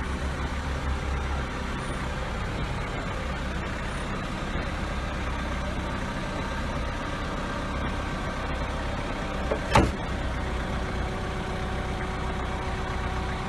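Forklift engine running steadily, with one sharp clank about ten seconds in.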